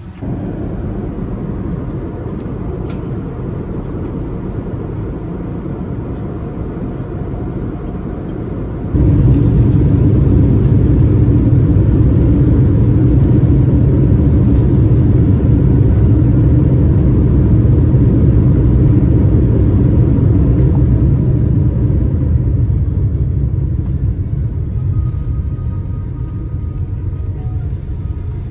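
Steady low rumble inside a jet airliner's cabin as it moves on the ground before takeoff. It gets abruptly louder and deeper about nine seconds in, then eases a little near the end.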